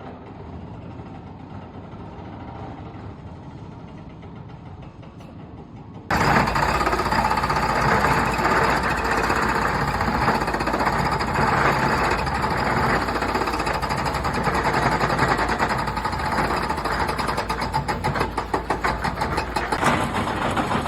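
A quieter, steady machinery noise, then about six seconds in a jackhammer starts up suddenly with loud, rapid, continuous hammering that goes on.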